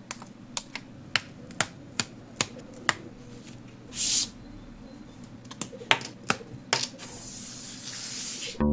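Light clicks of wooden model-kit parts being handled, about two a second, with a short hiss about four seconds in, a few more clicks, and a longer hiss near the end.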